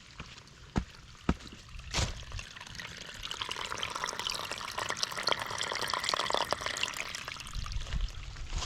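Small trail-side spring or stream trickling and splashing, growing louder about halfway through and fading near the end, with a few footsteps in the first two seconds.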